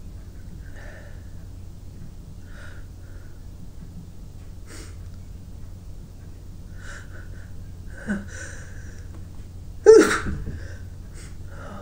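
A person sniffing and breathing in short, faint sounds, then one loud sneeze about ten seconds in.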